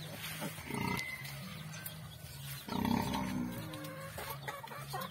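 Domestic sow grunting low while her litter of piglets suckles, with chickens clucking around; a louder animal call comes about three seconds in.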